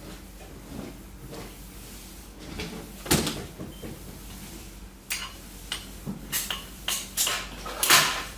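Kitchen clatter: a loud knock about three seconds in, then a quick run of sharp clacks and short clinks, the loudest just before the end, like cupboard doors, drawers and dishes being handled.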